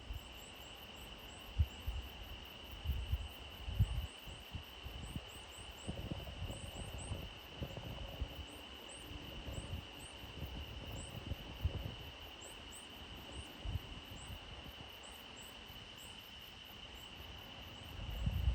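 Outdoor ambience of insects trilling in one steady high tone, with short high chirps repeating and irregular low rumbles and bumps on the microphone.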